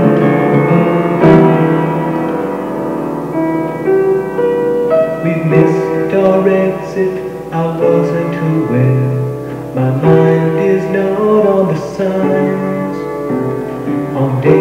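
Instrumental passage of a home-made tape recording of a song, with held keyboard chords changing every second or so.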